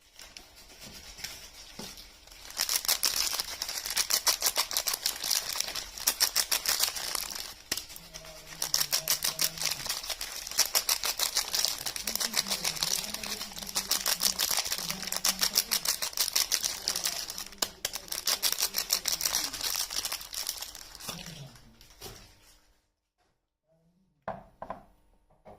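Soap wrapping being unwrapped and crinkled by hand: a long run of rapid, crisp crackling that stops about 22 seconds in, followed by a few soft handling sounds near the end.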